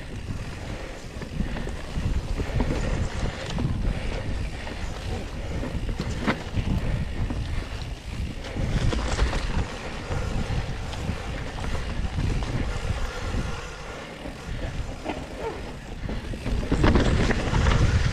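Mountain bike riding downhill on a dirt trail covered in dry leaves: wind buffeting the microphone over the rumble of the tyres, with occasional sharp clicks and rattles from the bike over bumps, louder near the end.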